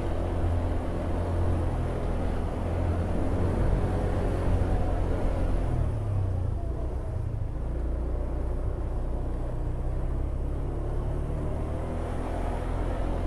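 Motorcycle engine running steadily at low riding speed, with road and wind noise. The engine note shifts a little about six seconds in.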